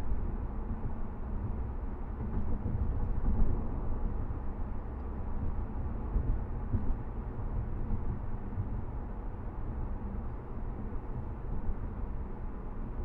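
A steady low rumbling noise with no clear rhythm or pitch, heaviest in the low end.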